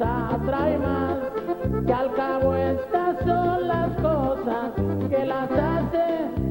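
Norteño music: an accordion plays the melody over a steady, bouncing bass line.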